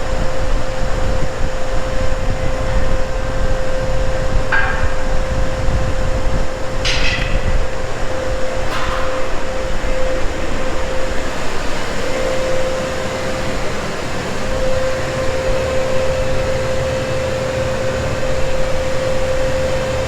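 Loud, steady machinery drone with a constant hum, filling the indoor work space. Three short, sharp knocks stand out over it, about four and a half, seven and nine seconds in.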